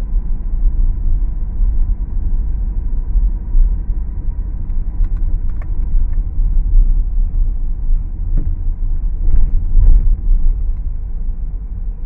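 Steady low rumble of a moving road vehicle, with a few light knocks along the way.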